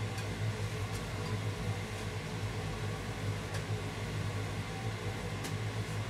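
Steady low mechanical hum with a light hiss, with a few faint clicks of wooden chopsticks against a frying pan as an omelette is worked.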